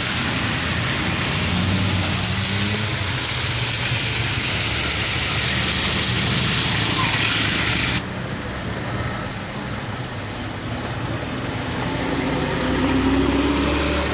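Rain hissing steadily with road traffic: car engines running past on a wet street, one rising in pitch near the end. The hiss drops abruptly about eight seconds in.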